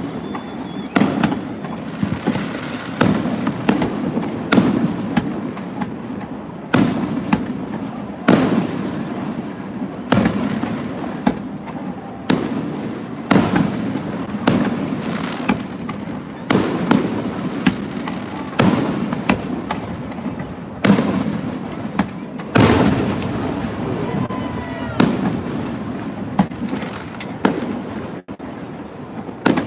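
Aerial fireworks bursting in quick succession, one to three sharp bangs a second, each with a trailing echo, over a continuous rumble of more shells.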